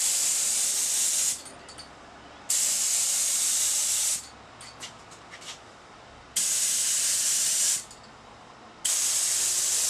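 HVLP spray gun spraying urethane finish in four bursts of air hiss, each about one and a half seconds long, with short pauses between passes. The gun runs off a small oilless compressor's tank that is running down, and the drop in air pressure can be heard.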